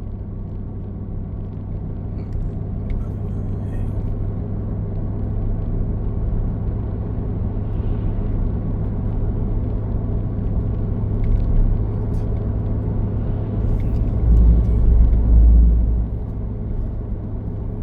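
Vehicle engine and road noise while driving: a steady low drone, with a louder deep rumble for about two seconds near the end.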